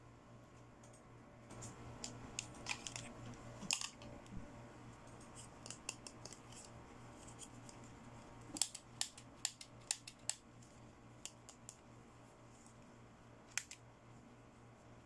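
Packaging and small plastic Barbie fashion accessories being handled and opened: sharp clicks and snips in two quick clusters, with one more click near the end, over a faint steady low hum.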